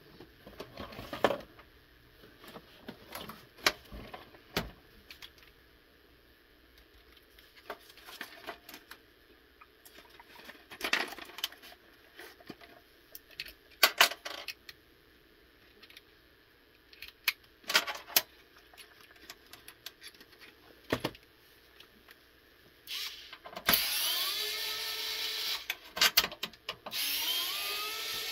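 Clicks and clatter of metal parts being handled on an Xbox 360's metal chassis and shield, then near the end a small electric screwdriver whirs twice, about two seconds each, with a rising whine as it backs out screws.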